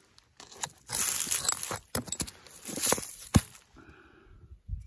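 Footsteps crunching on loose gravel and stones, with a few sharp knocks of hard objects striking rock; the loudest knock comes a little over three seconds in.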